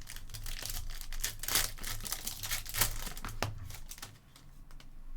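Trading-card pack wrapper being torn open and crinkled: a run of short crackles and rips, loudest about one and a half and three seconds in.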